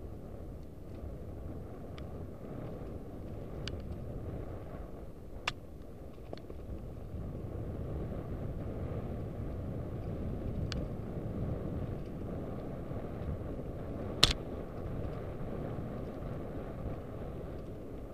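Mountain bike being ridden: a steady low rumble of wind on the microphone and tyres on the path, with a few small clicks and rattles and one sharp knock about fourteen seconds in.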